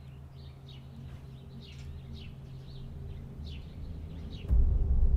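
Birds chirping in short repeated calls over a steady low hum. About four and a half seconds in, a sudden loud, deep rumble sets in and the birdsong stops.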